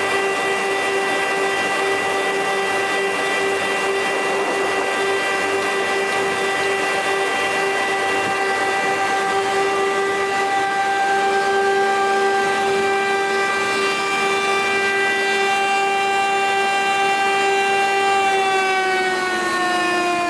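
Woodworking machine on a parquet production line running with a steady whine over a noisy hiss. Near the end its pitch slides down as it is switched off and spins down.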